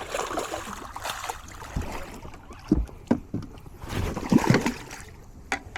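Water lapping and splashing around a small fishing boat, with a few irregular knocks and bumps, the loudest about three seconds in and again a little after four seconds.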